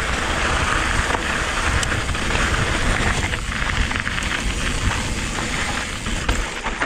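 Mountain bike tyres rolling fast over loose, slippery gravel: a steady crunching hiss with scattered clicks, and wind rumbling on the microphone.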